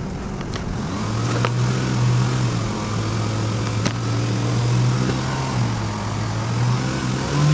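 Audi A3 1.8 FSI four-cylinder petrol engine running at raised revs, its pitch rising about a second in, holding steady, then rising again at the end. The engine is still misfiring on cylinders 1 and 2 despite new coils and plugs, which the mechanic takes as a sign that the cylinder head needs to come off.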